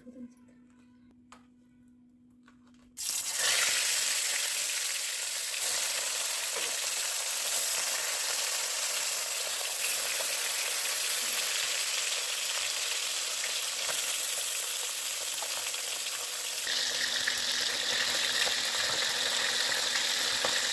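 Fish frying in hot oil: a loud, steady sizzle that starts suddenly about three seconds in. Before it there is only a faint hum and a few small clicks.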